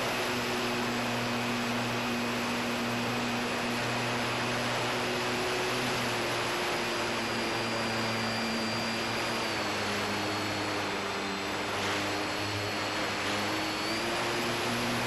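Onboard sound of a Durafly Tundra RC plane: its brushless electric motor and propeller run with a steady hum under a heavy rush of wind over the microphone. The motor's pitch steps down about ten seconds in and comes back up near the end as the throttle changes.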